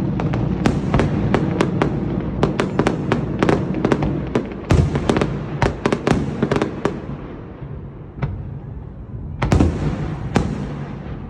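Aerial fireworks bursting in quick succession: many sharp bangs over a continuous rumble. The bangs thin out after about seven seconds, with a last few loud ones near the end.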